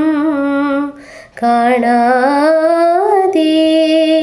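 A woman singing a Malayalam song, holding long notes with a wavering pitch. She breaks off for a moment about a second in, then carries on.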